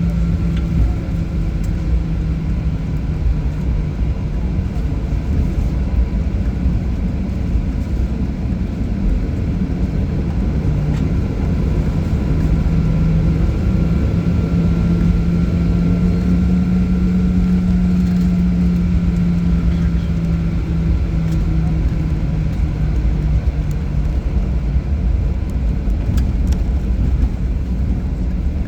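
Cabin noise of a Boeing 737 taxiing after landing: the jet engines' steady low rumble with a hum that shifts slightly in pitch partway through.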